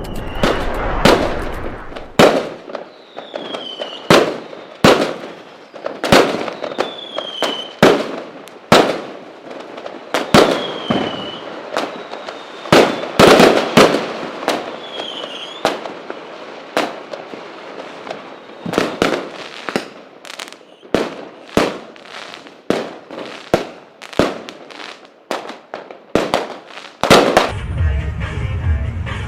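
Fireworks going off: a long irregular run of sharp cracking bangs, four of them led in by a short falling whistle.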